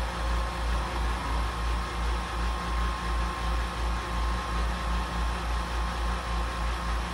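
Hobby DIY CNC mill machining aluminium with an end mill: steady cutting noise with a constant whine and a low pulsing about four times a second.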